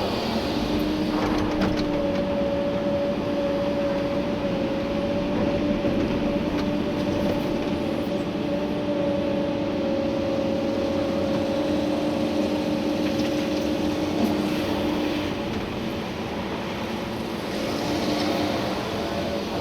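Komatsu PC290-11 excavator's diesel engine and hydraulics running under load while digging, heard from inside the cab: a steady rumble with a steady two-tone hydraulic whine. The lower tone drops out about three-quarters of the way through and comes back near the end, and a few faint knocks sound over it.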